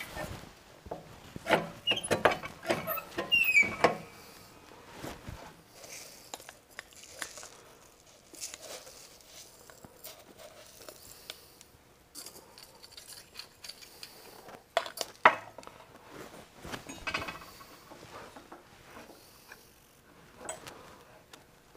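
Scattered clicks, taps and light clatter of small parts being handled: a clear jar, then the metal mold block of an Emco benchtop injection molder being set into its clamp. A sharp knock comes about fifteen seconds in.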